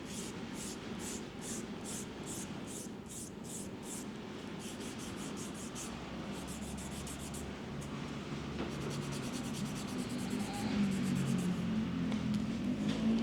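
A grooming tool rubbing and scraping with short, even strokes, about two or three a second, then in quicker runs. A low hum grows louder near the end.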